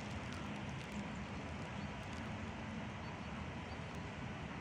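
Steady outdoor background noise with a faint low hum and no distinct nearby sound.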